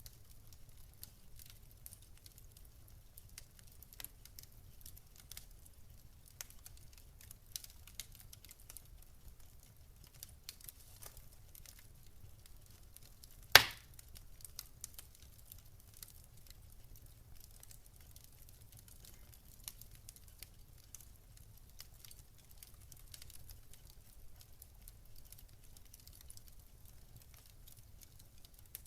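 Wood fire crackling, with many small scattered snaps and one loud sharp pop about halfway through.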